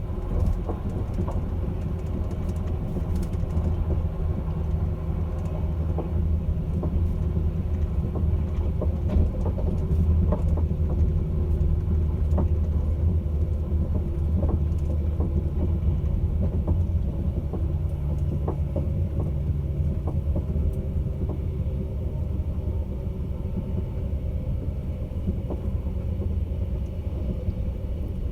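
Caledonian Sleeper train running: a steady low rumble with a droning hum, with light clicks and knocks scattered through it.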